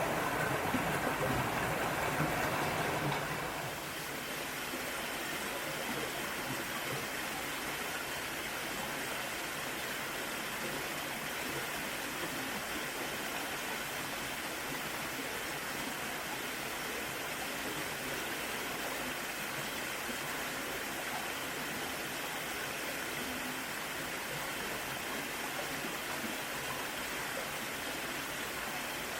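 Mountain valley stream rushing steadily over rocks. The first three or so seconds are louder and fuller in the low end, then it settles to an even, slightly quieter rush.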